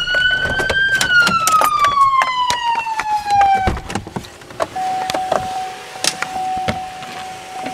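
Police car siren in a single wail, rising for about a second, then falling and cutting off a little before halfway, with scattered sharp clicks over it. About a second later a steady single tone starts and holds.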